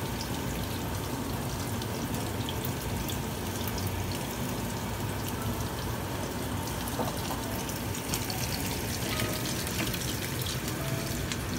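Crab paste patties frying in oil in a pan, a steady sizzle with a few faint ticks.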